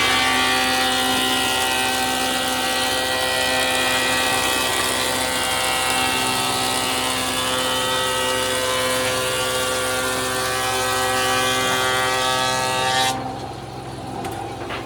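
A motor-driven machine running at a steady pitch with a hissing noise over it, which cuts off abruptly near the end.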